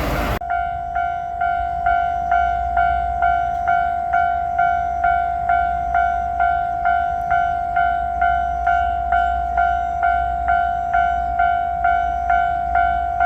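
Japanese level-crossing warning bell ringing steadily: an electronic clang repeating about twice a second. In the first half-second the rush of the passing train cuts off suddenly.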